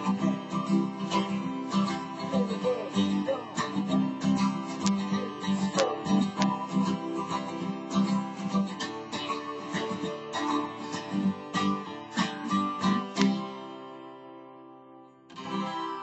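Taylor 12-string acoustic guitar strummed in a steady rhythm. About thirteen seconds in the strumming stops and the chord rings out and fades, then one last strum near the end rings on.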